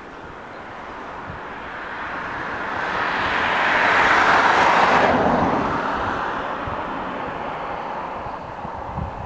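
An airliner passing close by: its engine noise swells to a peak about four to five seconds in, then fades away, and a faint high whine stops abruptly at the peak.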